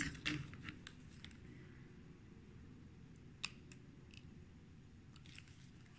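Quiet handling of a hot glue gun and a small piece of grosgrain ribbon: a few faint clicks, with one sharper click a little past halfway, over a low steady hum.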